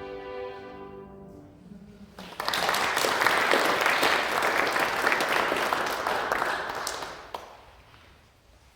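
A violin-and-piano ensemble's last held chord dies away, then the audience applauds for about five seconds, tailing off near the end.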